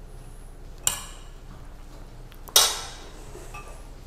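Kitchenware clinking as a spatula and a stainless steel mixing bowl are handled over a ceramic ramekin: two sharp knocks about a second and a half apart, the second louder with a short metallic ring.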